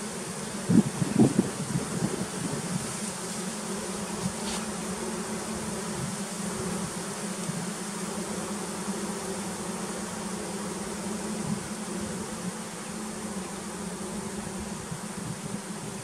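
Honey bees buzzing in an open hive: the colony's steady hum. A few brief louder sounds come about a second in.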